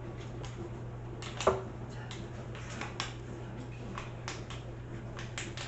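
Scattered small clicks and papery crackles of hands pulling cloves off a garlic bulb, with one sharper click about one and a half seconds in. A steady low hum runs underneath.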